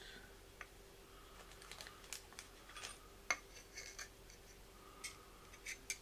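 Light, irregular clicks and taps of thin tin-can sheet metal and a snap-off knife blade being handled and fitted together, with one sharper click about three seconds in.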